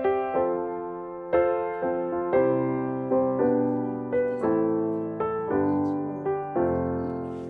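Slow solo piano music, single notes and chords struck about once or twice a second, each fading before the next.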